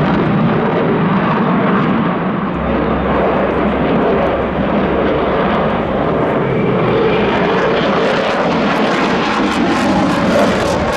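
Loud, steady jet noise from a Sukhoi Su-35's twin AL-41F1S afterburning turbofans during a display flight, turning crackly near the end.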